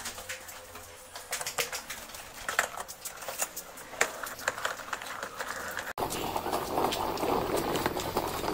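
Irregular knocks, clicks and rustles of walking with a handheld camera. About six seconds in, this changes abruptly to a steady outdoor street hum.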